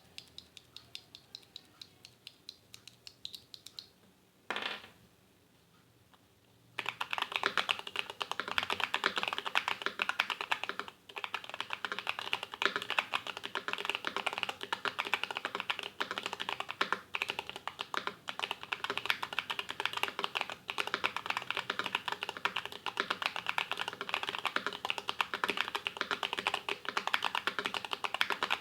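Mechanical keyboard typing on an Idobao ID80 v1 aluminium board fitted with stock, unlubed KTT Macaron blue light tactile switches and cherry-profile keycaps, its case filled with foam. Slow, evenly spaced keystrokes at first, a brief swish about four and a half seconds in, a short pause, then from about seven seconds fast continuous typing, louder.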